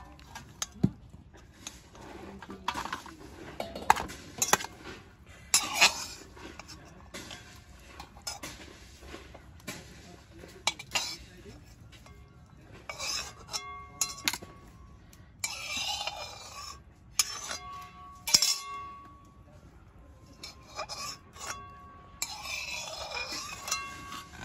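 Steel spatula scraping and clinking against a wok and a stainless steel plate in irregular knocks, as fried banana flower florets are lifted out of the oil and tipped onto the plate.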